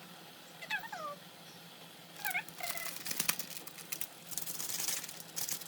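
Close-miked eating sounds: sharp clicks and a dense wet crackle of chewing and slurping. Earlier there are two short, squeaky, downward-sliding sounds.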